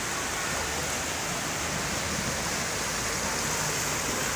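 Steady rushing hiss of water, from rain and runoff pouring over the eroded cemetery ground.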